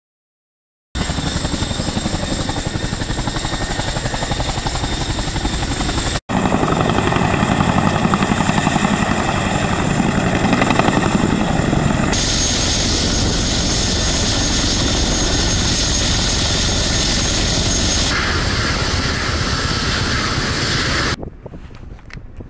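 A Boeing CH-47 Chinook tandem-rotor helicopter runs loudly, its rotors beating rapidly over the engine noise. It starts about a second in and changes abruptly every six seconds or so between clips, then drops away shortly before the end.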